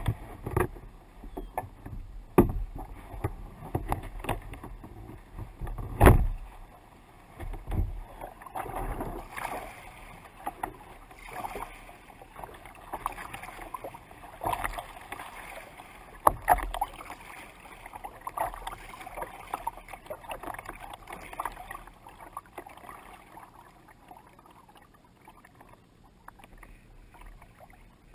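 Lake water lapping and splashing against a kayak's hull close to the microphone, with sharp slaps every few seconds, the loudest about six seconds in. The splashing is busiest in the middle and dies down near the end.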